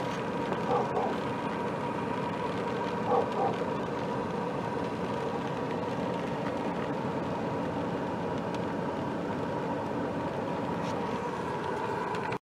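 Steady hum of a car's engine and cabin running in heavy rain, heard from inside the car, with an even rain-like hiss under it. Two short, louder sounds stand out about one second and three seconds in.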